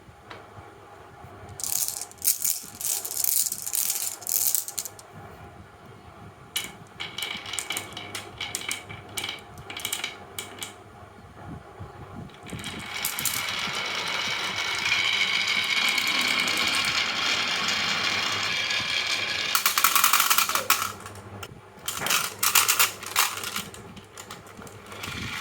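Marbles and small toy vehicles rattling down a wooden HABA marble-run slope: bursts of fast clicking and clattering, with a longer steady rolling rumble through the middle.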